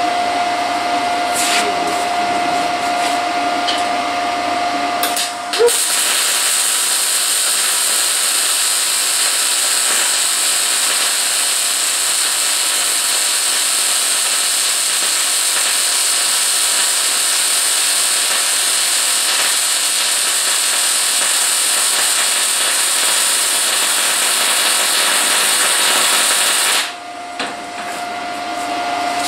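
Arc welding on a steel engine-stand frame: a steady sizzling hiss starts about six seconds in, runs for about twenty seconds as one continuous bead, and cuts off sharply. Before and after it, a steady shop hum with a single high tone.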